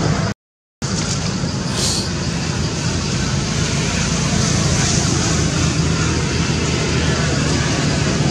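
Steady low hum with hiss of background noise, broken by a half-second dropout to silence near the start.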